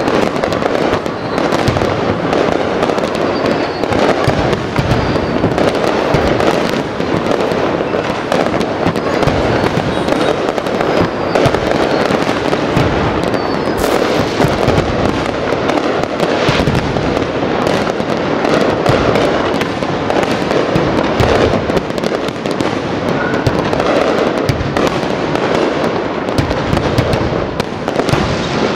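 Aerial fireworks display: a dense, unbroken barrage of shells bursting in quick succession, bangs overlapping one another.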